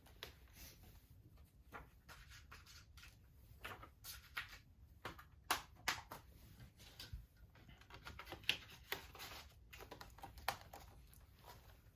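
Faint, irregular plastic clicks and taps from handling a Blu-ray case and its discs.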